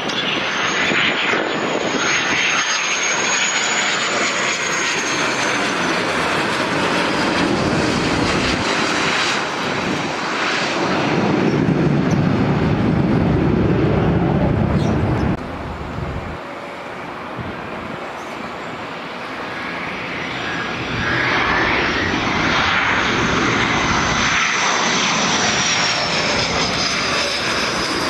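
Military aircraft turbine engines passing overhead. A high whine rises and falls early on, then a heavy low rumble builds and cuts off suddenly about fifteen seconds in. The whine swells again near the end.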